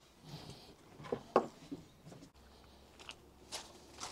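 Scattered short knocks and scuffs of handling, the loudest a little over a second in, with a few fainter ones later.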